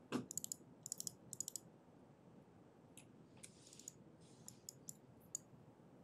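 Faint clicking at a computer keyboard and mouse: three quick runs of clicks in the first second and a half, then a few scattered single clicks, over quiet room tone.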